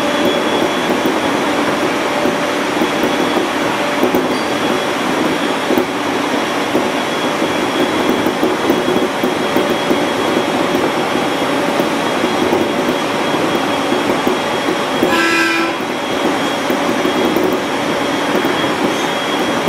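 An IGR 701-series electric train running steadily, heard from inside the train: a constant rumble of wheels on rail with a steady motor whine. A brief pitched tone sounds about 15 seconds in.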